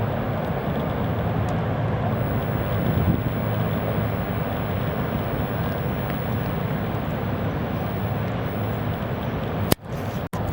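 Steady low rumble of wind buffeting the microphone over the roar of heavy ocean surf. Near the end the sound drops out briefly twice.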